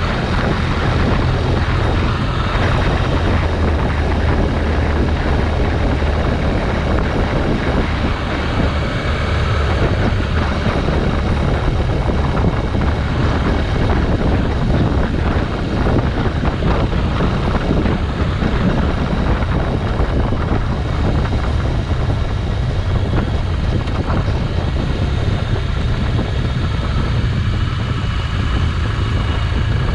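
A motorcycle on the move: its engine running steadily under the rush of road and wind noise, with a strong low rumble.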